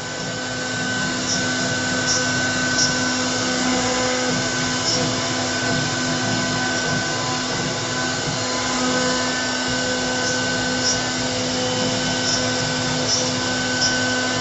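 CNC router spindle running steadily as it carves a 3D relief in wood, a constant whirring machine noise with a few steady tones, with faint high ticks now and then.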